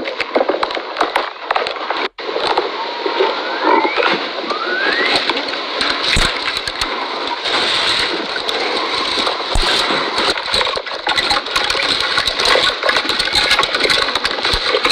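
Camel chewing cactus: a steady, dense run of wet crunching and smacking, broken by a brief gap about two seconds in.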